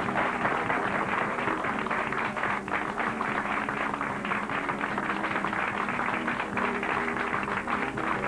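Studio audience applauding, with the show's music playing underneath in steady held notes.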